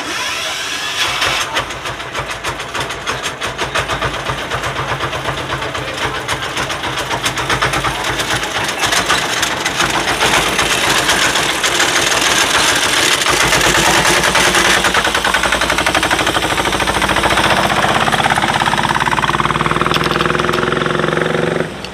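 Engine of a homemade miniature Peterbilt 379 replica truck running as it drives off, with a quick, even pulsing beat. Its pitch rises over the last few seconds.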